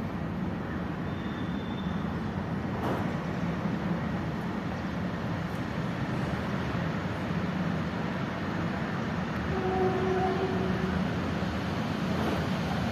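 Steady low rumble of vehicle traffic. A short high tone sounds about a second in, and a brief low tone near ten seconds.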